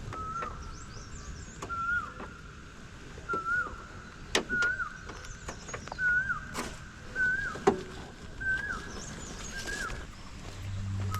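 A bird repeating the same short whistled call, rising then dropping, about once every second and a half. Fainter high chirps from other birds and a few scattered knocks come in between.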